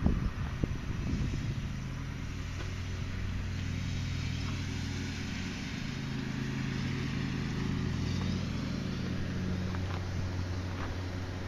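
A vehicle engine idling steadily, with a few handling knocks in the first second or two.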